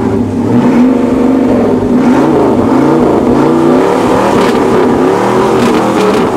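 Ford Maverick V8 engine revved hard while the car stands still, the pitch climbing and dropping in several blips of the throttle.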